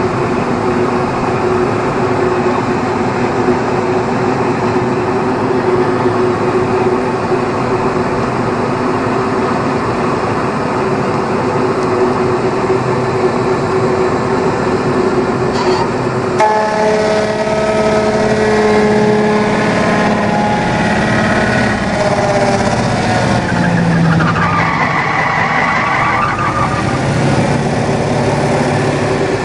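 MXJ216 sawdust machine running with a loud, steady mechanical hum. About halfway through, its tone changes abruptly, and a little later part of it slides down in pitch.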